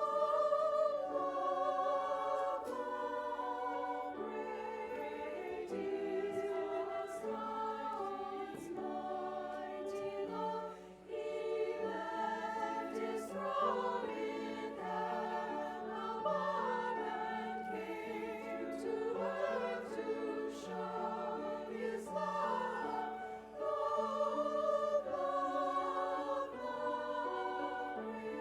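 A choir singing a slow hymn in several-part harmony, phrases held and moving together, with short breaks between phrases about eleven and twenty-three seconds in.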